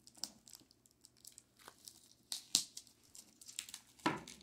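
Plastic shrink wrap on a record box set being slit with a knife and crinkling, in scattered crackles with two sharper snaps about two and a half and four seconds in.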